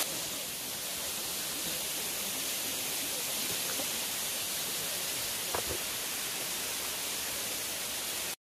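Steady rushing of a waterfall pouring down a rock face, cutting off suddenly near the end.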